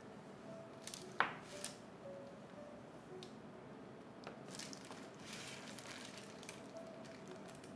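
Faint squelching of set agar-agar jelly as a plastic serrated cutter presses into the block and a cut strip is peeled away, with one sharp click about a second in.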